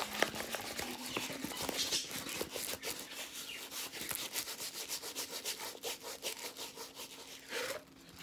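Rolled diamond-painting canvas being rolled back the other way to flatten it, rubbing and crinkling in a run of rapid crackles that dies down near the end.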